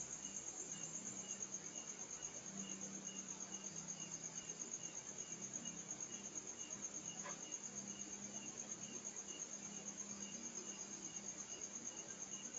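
Crickets chirping at night: a steady high trill with a slower, evenly repeating chirp beneath it, over a faint low hum.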